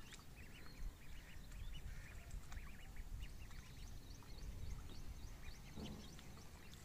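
Ducklings peeping faintly, a scatter of short high calls over a low background rumble.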